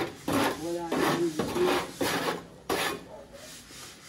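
Wet concrete being scraped out of a wheelbarrow and spread by hand over the slab's rebar: a rasping scrape about twice a second, stopping about three seconds in.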